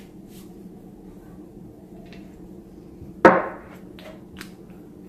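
A small glass essential-oil bottle set down on a wooden table: one sharp knock with a short ringing tail about three seconds in, followed by a couple of light clicks. A faint steady hum runs underneath.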